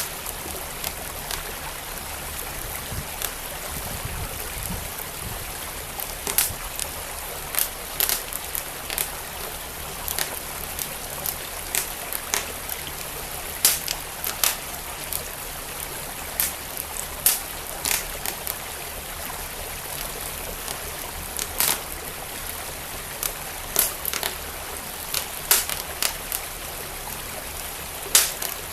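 Fire crackling with irregular sharp pops, several a second at times, over the steady rush of a flowing stream.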